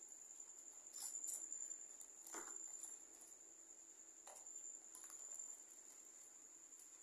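Faint, steady high-pitched trill of a cricket, with a few soft taps now and then.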